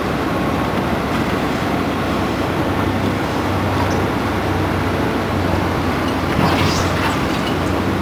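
Case CT 450 skid steer's diesel engine running steadily as the machine drives toward the microphone over dirt, a continuous low drone. A few short clanks near the end.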